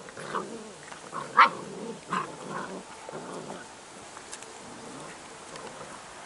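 Airedale Terrier puppies play-fighting, giving a run of short yaps and growls in the first few seconds, the loudest about a second and a half in.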